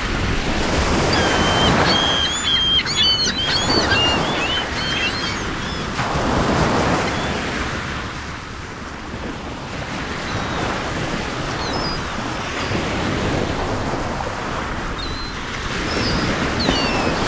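Surf washing onto a shore in slow swells every few seconds, with small birds chirping over it, most busily a few seconds in and again near the end.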